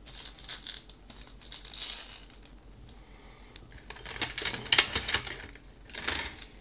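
Crinkling of clear plastic packaging with light clicks and rattles of small hard-plastic mount parts being lifted out of a blister tray, busiest with sharp clicks about two-thirds of the way in.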